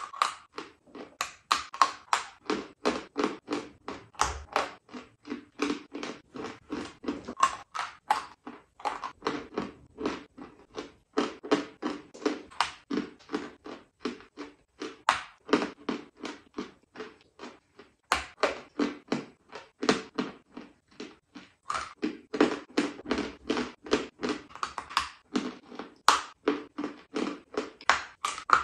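Lumps of white chalk being bitten and chewed: a steady run of crisp, dry crunches, about two or three a second, with a few short pauses.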